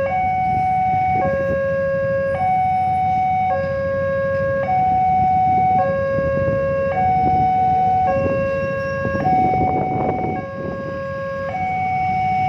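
Railway level-crossing warning alarm sounding: an electronic two-tone signal alternating between a higher and a lower tone, each held a little over a second, warning that a train is approaching. Motorcycle and road traffic runs underneath.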